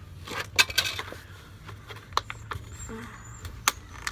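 A few sharp clicks and light knocks of small containers and paint pots being handled, the loudest about half a second in and again near the end.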